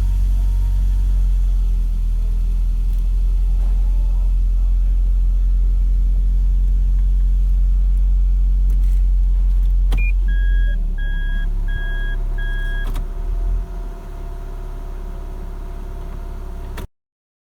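Toyota Alphard engine idling just after a start with a heavy, steady low rumble, the noise and vibration traced to a worn right-side engine mount that has bottomed out. About ten seconds in there is a click and four short electronic beeps, and the rumble eases a little a few seconds later.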